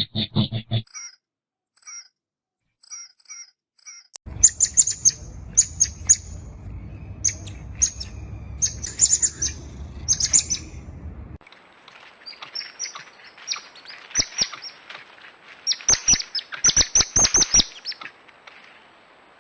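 Coatis chirping: short, high-pitched chirps and squeaks in quick runs, in several separate takes, one of them over a low rumble.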